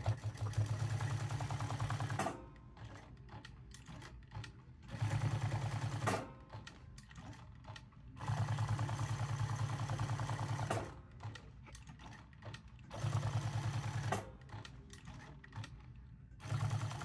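Jack S5 sewing machine stitching a leather patch onto a hat in five short runs of rapid, even needle strokes. It stops between runs while the hat is turned to follow the patch's edge.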